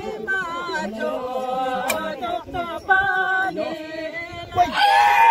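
A mixed group of men and women singing a traditional Bhutanese song together, with long held notes. The voices get louder near the end.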